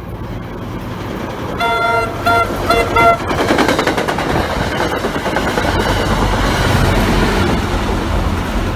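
A train horn sounds about three short blasts. Then an NJ Transit commuter train passes close by: the cars rumble and the wheels clatter over the rails, growing louder as the diesel locomotive's engine goes by.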